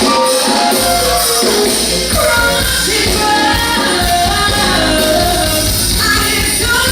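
Live band music with a lead singer and backing vocals.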